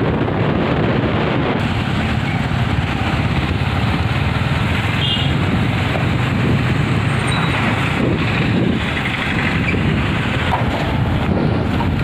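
Steady wind rush on the microphone of a moving motorbike, over the bike's running and the road traffic around it.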